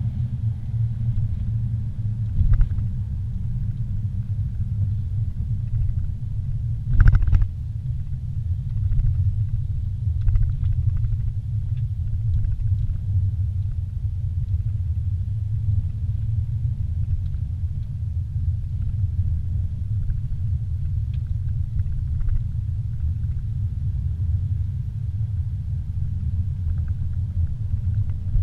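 Steady low rumble of a car's engine and tyres heard from inside the cabin while driving on a paved street. A short loud thump about seven seconds in.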